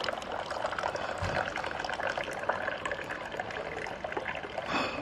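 Tea poured in a long stream from a silver Moroccan teapot held high into a small tea glass, splashing steadily. This is the repeated pouring from height that mixes the tea. A short sharp sound comes near the end.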